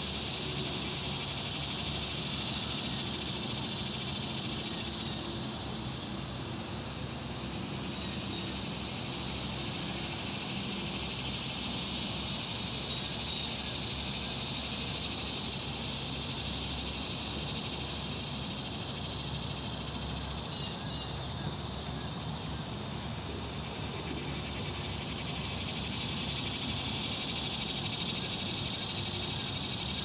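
A chorus of insects, a high-pitched buzzing that swells and fades in slow waves, loudest at the start and again near the end. Underneath runs a steady low rumble, with a few faint bird chirps about two-thirds of the way through.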